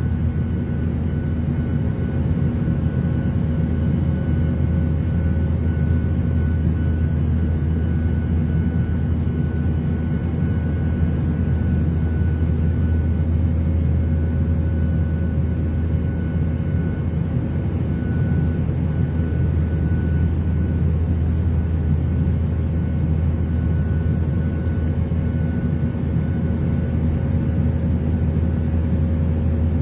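Airliner cabin noise in flight: a steady, even rumble with a few faint constant hum tones above it, unchanging throughout.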